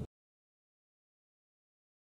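Complete silence: the sound track cuts off dead right at the start and stays empty.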